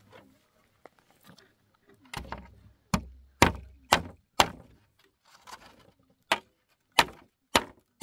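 Sharp chopping blows, five in quick succession from about two seconds in, then after a short pause more at a steady pace of nearly two a second.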